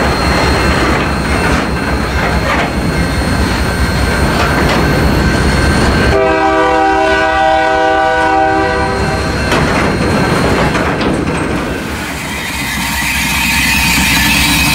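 Freight train of hopper cars rolling past close by, wheels rumbling and clacking over the rail joints. About six seconds in a train horn sounds one steady chord for about three seconds. Near the end a diesel locomotive comes by and the rumble changes.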